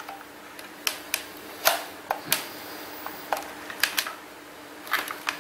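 Scattered light clicks and taps from handling a Mauser SR Pro airsoft sniper rifle: hands shifting on the rifle body, about ten separate clicks spread unevenly over a few seconds.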